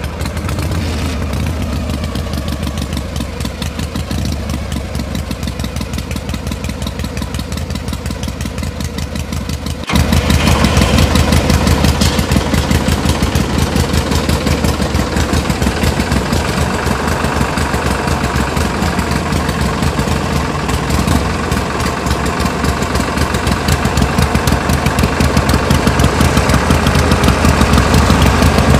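Power tiller engine running with a fast, even chugging; about ten seconds in it abruptly gets louder.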